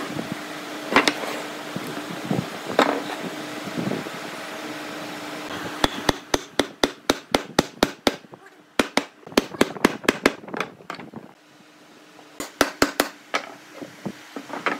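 Hammer tapping on wood in quick runs of about four or five blows a second, with a few separate heavier strikes in the first few seconds over a low steady hum.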